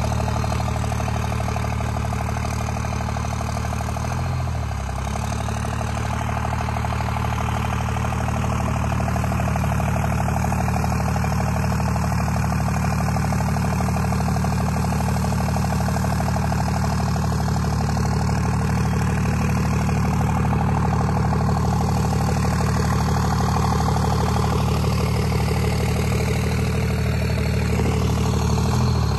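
Second-generation Dodge Ram's 5.9-litre Cummins inline-six turbodiesel running steadily at low revs as the lifted pickup crawls along, its pitch hardly changing.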